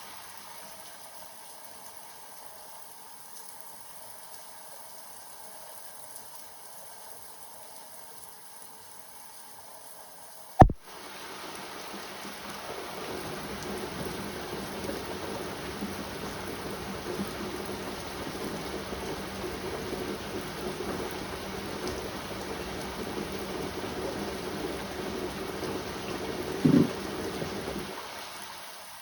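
Rain falling steadily, fainter at first and heavier after a sharp click about ten seconds in. A brief low knock comes near the end.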